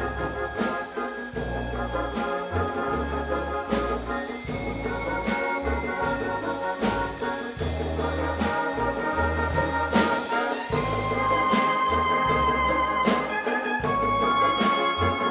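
Spanish agrupación musical, a brass and percussion marching band, playing live: trumpets and trombones hold chords that change every second or two over a steady drumbeat and a low bass line.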